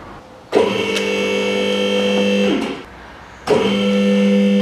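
Electric motor of a car lift's hydraulic pump running in two bursts of about two seconds each, a steady hum that starts and stops abruptly, raising the car body off the engine in short steps.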